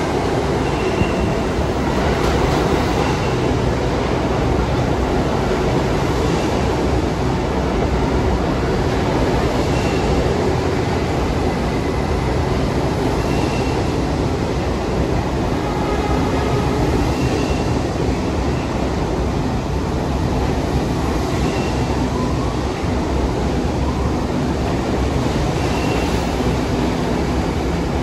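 New York City subway train running through an underground station: a steady, loud rumble of steel wheels on rail, with a faint rising whine a little past three-quarters of the way in.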